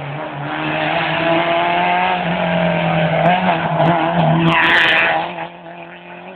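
Rally car engine at high revs as the car sweeps close past through a tight bend, its pitch rising and dipping with the throttle, with a brief burst of tyre noise about four and a half seconds in. The sound drops away suddenly just after five seconds as the car pulls away.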